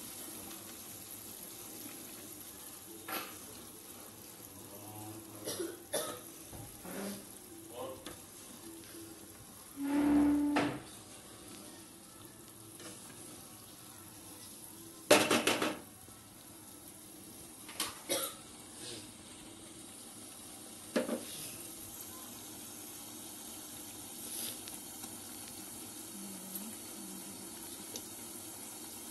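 Wooden spatula stirring and scraping in a nonstick pan of simmering creamy paneer gravy, over a steady soft sizzle. Several short knocks and scrapes of the spatula against the pan, the loudest about halfway through.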